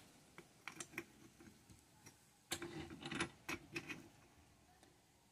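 Faint, scattered small clicks and light metallic knocks from hands handling a drill chuck clamped in a bench vise, with a short run of them a little past halfway.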